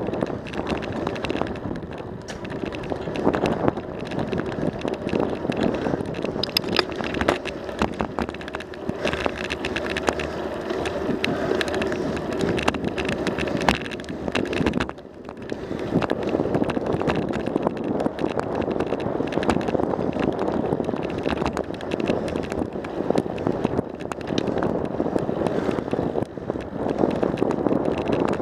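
Bicycle riding along a paved trail, heard from a bike-mounted camera: steady tyre and wind noise with frequent small rattles and clicks from the bike over the bumps, dipping briefly about halfway through.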